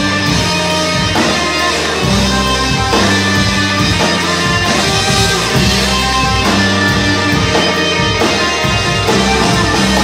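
Blues-rock band playing live: electric guitar over bass and drums, at a steady loud level.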